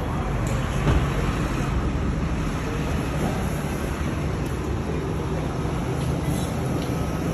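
Steady road traffic noise, mostly low rumble, with a light knock about a second in.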